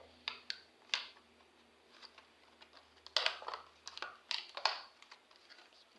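Plastic toy packaging being handled and pried at by hand: short crinkling crackles and clicks, a few in the first second, then denser clusters about three seconds in and again around four and a half seconds. The pack is hard to get open.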